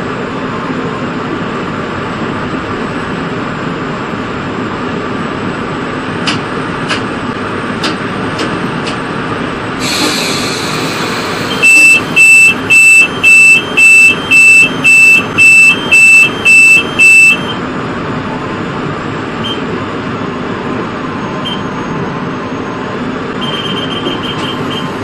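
Steady running noise of a UTA FrontRunner commuter train, heard from the head end as it rolls along the track. About ten seconds in there is a brief hiss. Then a loud electronic beep sounds about ten times, roughly twice a second, for five or six seconds.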